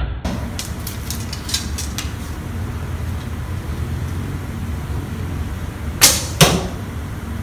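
A laminated Turkish-style traditional bow is shot: the string is released with a sharp snap near the end, and a second sharp crack follows just under half a second later as the arrow strikes the target. A steady low hum lies underneath, with a few light ticks in the first two seconds.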